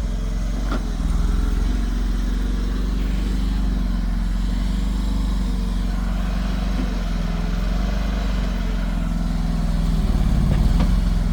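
Mini excavator engine running steadily while digging a trench, getting a little louder near the end.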